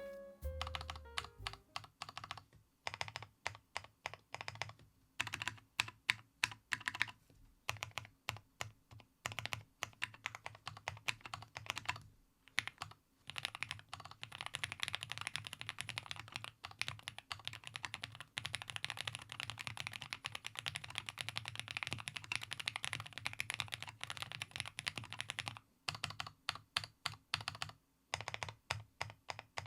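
Typing on a Meletrix Zoom65 gasket-mount custom mechanical keyboard with JWK linear switches and PBT keycaps: muffled, clacky keystrokes. The strokes come in scattered bursts at first, then a fast continuous run of typing about halfway through, thinning out again near the end.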